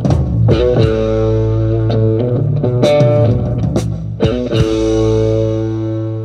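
Live band jamming on electric guitar and bass: a few strummed chord hits over a steady bass note, then a single chord held and left ringing for the last couple of seconds.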